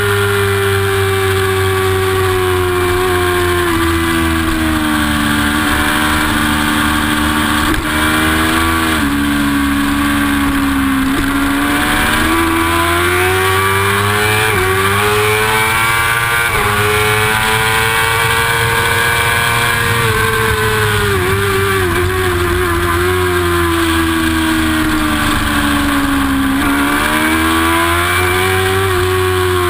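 Yamaha YZF-R6 600cc inline-four race motorcycle heard onboard at high revs, the engine note climbing and dropping again and again as the rider works the throttle and gears through the corners.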